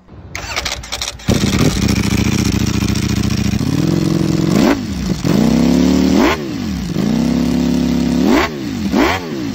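Ducati Panigale V4 sport bike's V4 engine firing up about a second in and idling, then revved several times in the second half, each blip a quick rise and fall in pitch.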